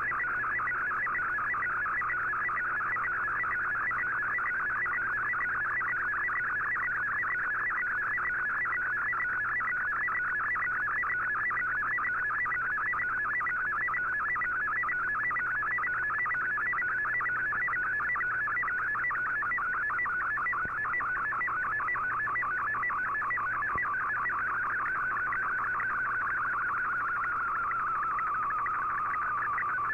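Slow-scan television (SSTV) picture signal received over shortwave AM on an Icom IC-R8600: a warbling data tone with a rapid, even ticking of line-sync pulses as the image is sent line by line. Near the end the tone slides lower.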